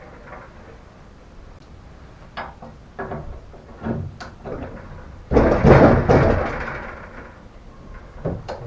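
Knocks and clanks of metal car-body parts, then about five seconds in a loud rattling crash of metal that fades away over a second or two.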